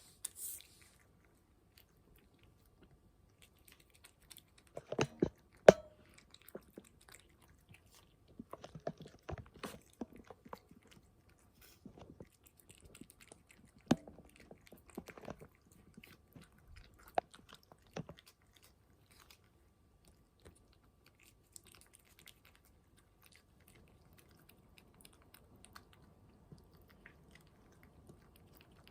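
A cat chewing and crunching food: scattered wet clicks and crunches, loudest in a cluster about five seconds in and a sharp one near fourteen seconds, thinning out in the last third.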